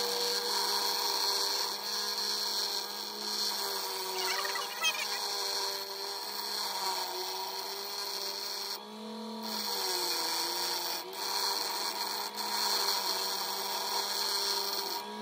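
Electric bench grinder running with steel pressed against the wheel, grinding the rust off an old splitting maul head and putting a new edge profile on it. A steady motor hum over a grinding hiss, the hum dipping in pitch a few times.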